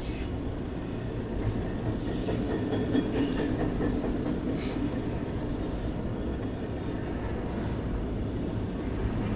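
Double-stack intermodal well cars of a Norfolk Southern freight train rolling past: a steady rumble of steel wheels on rail, with a couple of sharp clacks near the middle.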